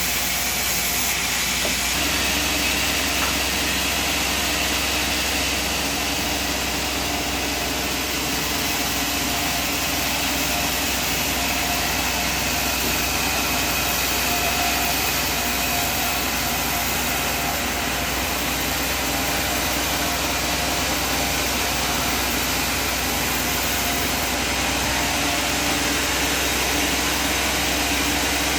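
Sawmill machinery running steadily, a constant loud hiss with faint steady hum tones underneath and no clear knocks or changes in load.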